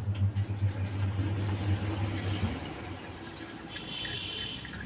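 Fully automatic top-loading washing machine running, with water rushing into the drum. A steady low hum stops about halfway through, and a faint high tone sounds briefly near the end.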